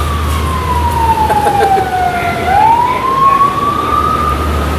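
Ambulance siren wailing: one slow tone that falls for about two and a half seconds, then rises again.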